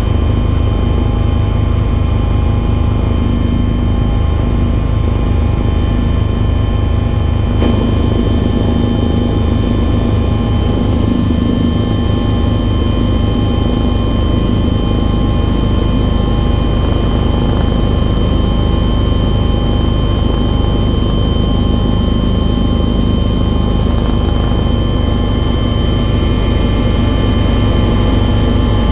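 Loud, steady engine drone: a deep rumble with several steady whining tones over it, unchanging throughout.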